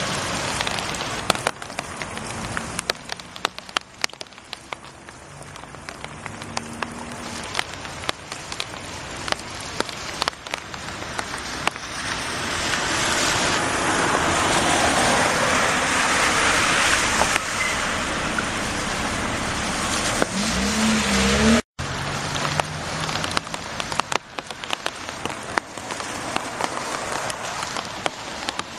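Heavy rain pattering on a wet paved street and puddles, with many sharp drop hits. Through the middle a louder rushing hiss swells up and falls away about two-thirds of the way in. It ends in a brief rising tone and a moment when all sound cuts out.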